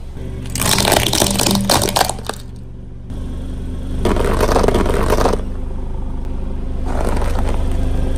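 Something brittle crackling and crunching under a car tyre for about two seconds. Then the car's engine runs steadily, with two louder swells of noise.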